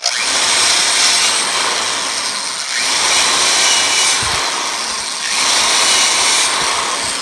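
Vintage Craftsman corded electric drill running under load as a quarter-inch bit bores through a block of wood. The noise swells and eases a couple of times as the bit bites, with a thin high whine from the motor throughout.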